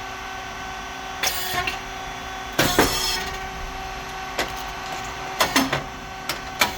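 SYP5804T rice cake popping machine running: a steady hum from its hydraulic motor and pump, with scattered clicks and clacks. About two and a half seconds in comes one loud burst with a hiss as the heated moulds open and the rice chips pop.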